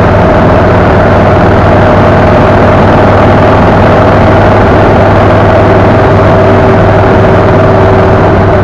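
A vehicle cruising at highway speed: a steady engine drone under loud, constant wind and road noise.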